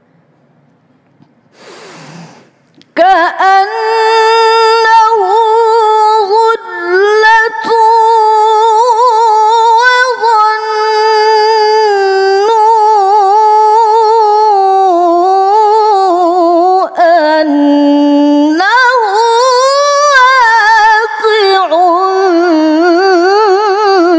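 A woman's voice reciting the Quran in melodic tilawah style, loud and close on the microphone. After a quiet start she comes in about three seconds in and draws out one long, ornamented melodic phrase with wavering turns, dipping lower a little past the middle and climbing again near the end.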